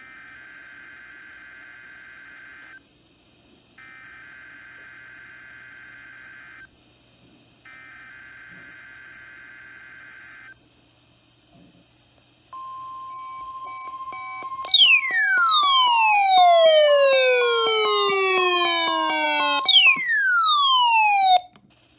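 NOAA Weather Radio weekly test alert: three EAS/SAME digital header bursts, each a shrill buzzing screech of about three seconds with a second's gap between them, then the steady 1050 Hz warning alarm tone starting about halfway through. Over the alarm tone, loud tones glide steeply down in pitch, twice, cutting off just before the end.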